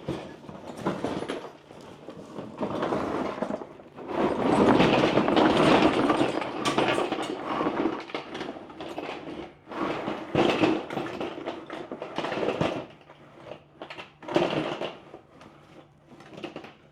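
Loose metal junk clattering and scraping as it is rummaged through and moved about, loudest about four to six and a half seconds in, then separate knocks and clanks.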